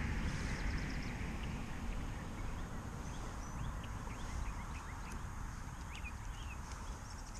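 Steady wind rumble on the microphone, with faint short bird chirps scattered through the first few seconds.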